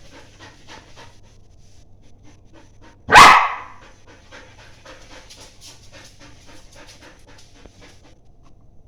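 German shepherd puppy panting in quick, even breaths, with a single loud bark about three seconds in.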